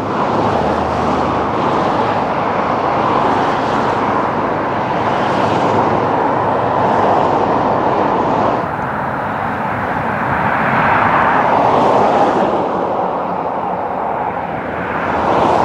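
Busy main-road traffic close by: vehicles passing one after another, their tyre and engine noise swelling and fading every couple of seconds, with a brief lull a little past halfway.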